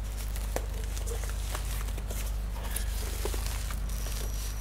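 Crinkling and rustling of a guitar amp's protective wrap as the amp is pulled out of it, with scattered small crackles over a steady low hum.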